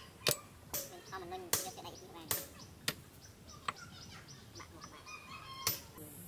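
Hammer striking a chisel held on red-hot leaf-spring steel on the anvil, cutting the hot steel: a run of sharp blows about one a second, some lighter. Poultry call and cluck between the blows.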